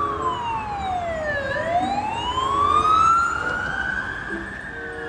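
Ambulance siren wailing: one slow fall in pitch, then a long rise that levels off and starts to drop again near the end.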